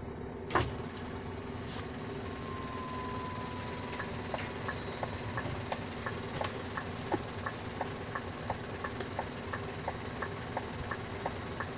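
Truck diesel engine idling in the cab, with one sharp knock just under a second in. From about four seconds in, the turn-signal indicator ticks steadily, a few clicks a second.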